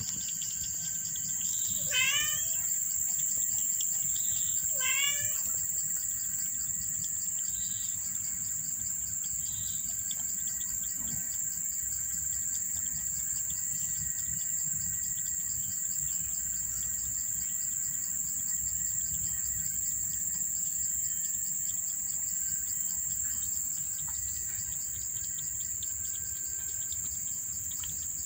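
Insects trilling steadily in a high pitch. About two seconds in, and again about three seconds later, a bird calls: a quick run of notes falling in pitch.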